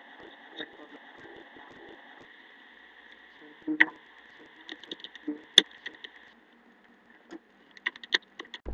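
Scattered computer-mouse clicks and small knocks over a steady microphone hiss. The hiss fades out about six seconds in, a quick run of clicks comes near the end, and the loudest knock is about four seconds in.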